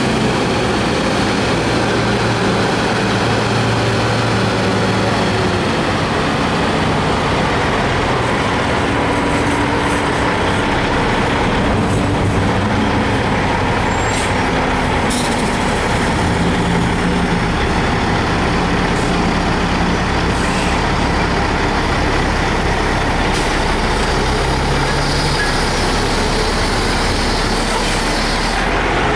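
Heavy diesel tractor-trailers running as they creep past in a slow convoy, their engine notes shifting up and down as they move.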